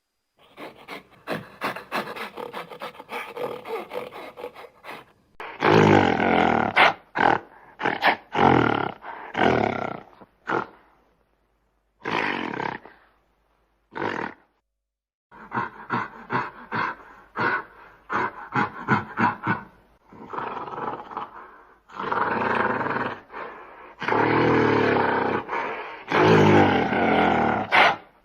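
Gorilla roaring and grunting in bouts of rapid, repeated calls, with two short pauses past the middle and longer drawn-out roars near the end.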